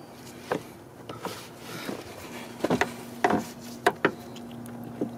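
Pliers and gloved fingers working at the plastic headlight housing and park-light bulb socket in an engine bay: a string of sharp, irregular clicks and knocks. A faint steady hum comes in about two seconds in.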